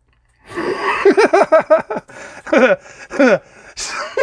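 A man laughing hard, in rapid runs of pitched 'ha' pulses at about five a second, in two runs with a short break between them.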